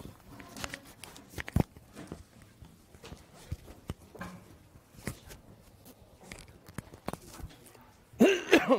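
Scattered light knocks and clicks from people moving about and handling equipment at a presenter's desk, with a short burst of a voice near the end.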